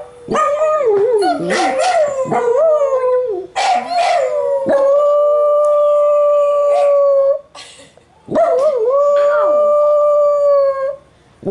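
Dachshund howling in three long calls: the first wavers up and down, the next two are held steady on one pitch.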